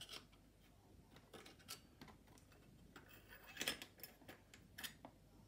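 Faint, scattered clicks and light scrapes of a cover plate being worked off a Stokke Xplory stroller's foot-brake housing, with the strongest few clicks about three and a half seconds in.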